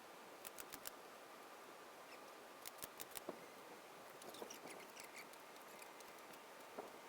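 Faint sharp metallic clicks in small quick clusters, with a patch of light high squeaks in the middle, from hand tools working aluminium aircraft parts.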